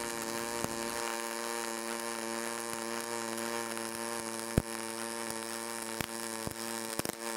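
Pulse MIG welding arc from an HTP Pro Pulse 200 running 030 ER70S6 steel wire in pulse-steel mode at a short arc length: a steady buzzing hum with a few sharp pops scattered through it.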